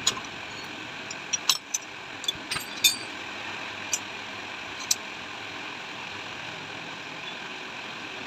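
Metal tools and shock-absorber parts clinking during hands-on repair work: a run of sharp clicks, about eight in the first five seconds, over a steady background hum of traffic or engines.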